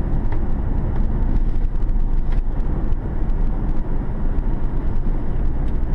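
Steady low rumble of a car being driven, engine and road noise.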